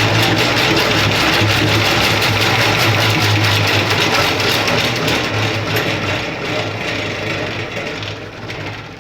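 Centrifugal honey extractor spinning frames of comb, its motor humming steadily with a loud whirring rattle of the drum; over the last few seconds the sound fades as the spin slows down.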